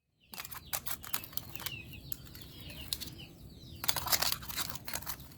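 Live crabs being handled: irregular rustling, scraping and sharp clicks, busiest about four seconds in. A few quick high chirps sound in the first two seconds.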